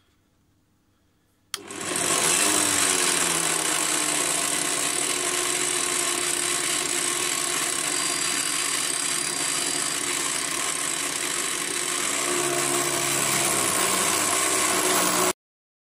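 Direct-drive pillar drill used as a mill: the motor switches on about a second and a half in with a rising whine, then an end mill takes a facing cut in a metal plate, giving a loud, harsh, steady cutting noise over the motor. It is too greedy a cut. The sound cuts off suddenly near the end.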